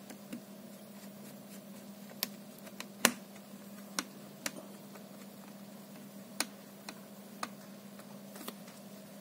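Scattered sharp clicks and taps of a precision screwdriver and small screws against a laptop's chassis, irregular and about one a second, the loudest about three seconds in, over a steady low hum.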